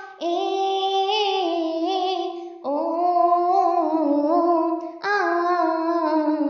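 A high solo voice singing a wordless nadanpattu folk-song melody in three long phrases, its pitch wavering, with no accompaniment heard.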